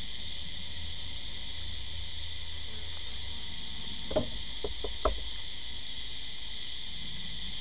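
A steady, high insect chorus trills throughout. About four seconds in come a few sharp wooden knocks and clicks as gloved hands grip and shift the wooden frames in the nuc box.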